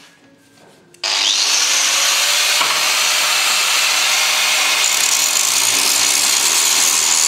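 Angle grinder fitted with a thick grinding disc starts about a second in with a short rising whine, then grinds metal in a loud, steady hiss, taking material off flat on the disc face.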